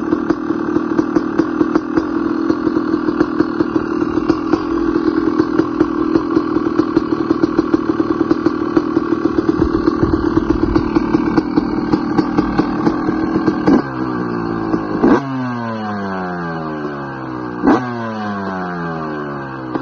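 2017 Yamaha YZ250 two-stroke single-cylinder motocross engine idling, then blipped sharply three times from about two-thirds of the way in, the revs dropping back after each blip.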